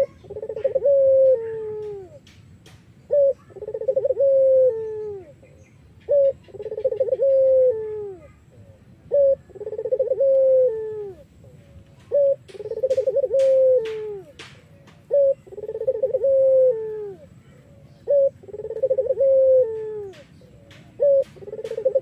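Puter Irak dove, a domestic ringneck dove, cooing over and over: about eight calls roughly three seconds apart. Each call is a short note followed by a longer trembling coo that falls away at the end. A few faint sharp clicks come about twelve to fourteen seconds in.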